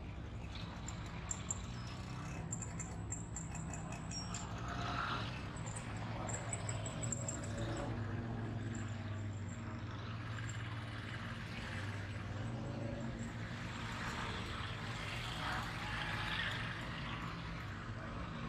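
Busy street traffic led by the steady low hum of auto-rickshaw engines running close by, with scattered high chirps in the first half.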